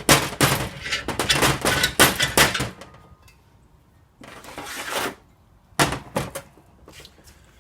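Metal knocks and clanks as the halves of an aluminium Volkswagen engine case are split apart: a rapid clatter for about three seconds, a short scraping rush about four seconds in, then a few sharp knocks.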